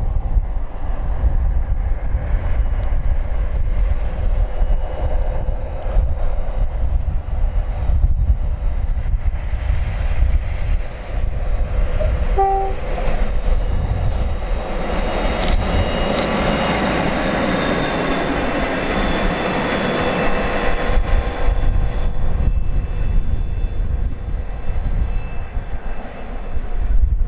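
A train sounds a short two-note horn, high then low, about twelve seconds in, then passes at speed, its noise building and fading over about seven seconds. Strong wind buffets the microphone throughout.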